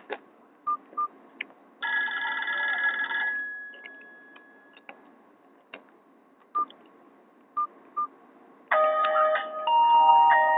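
Nokia 216 mobile phone playing Nokia E50 ringtones. There are clicks and short single keypad beeps, and a ringtone preview that plays for about a second and a half and cuts off. Near the end another polyphonic ringtone melody starts.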